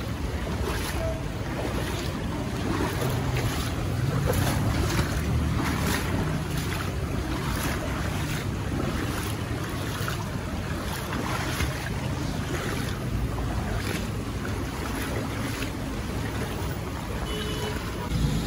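Fast-flowing floodwater rushing and churning, with wind rumbling on the microphone.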